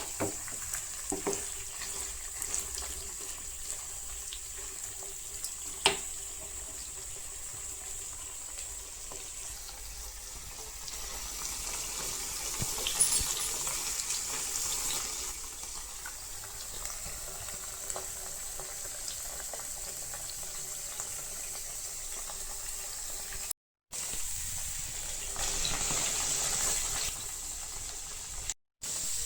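Chicken pieces frying in oil in a pan, a steady sizzle with a few sharp knocks.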